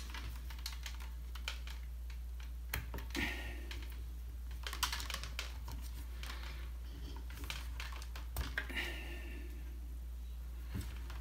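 Scattered small plastic clicks and taps as plastic tubing is handled and pushed into a quick-connect fitting on a reverse osmosis filter unit, over a steady low hum.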